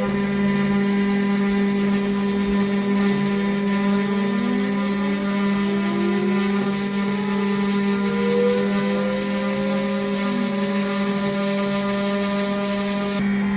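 DIY CNC router milling aluminum: the spindle runs with a steady whine over a cutting hiss, while the stepper motors glide up and down in pitch as the axes move. The high hiss drops away suddenly near the end.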